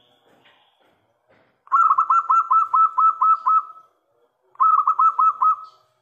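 Zebra dove (perkutut) singing: a quick run of about nine short staccato coos, then after a brief pause a second run of about five, each note a clear tone that dips down at its end.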